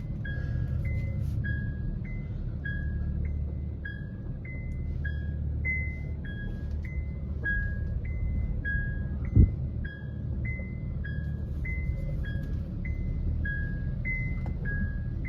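A car's electronic two-note warning beep, a short higher note then a lower one, repeating about every 0.6 s over a low engine rumble. One sharp thump about nine seconds in.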